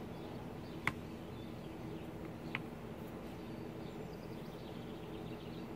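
Two sharp small clicks about a second and a half apart as the early-1920s Marchant mechanical calculator is handled, over a steady low background hum.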